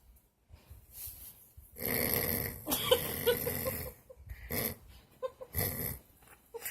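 Snoring during sleep: one long snore of about two seconds, then two shorter snores.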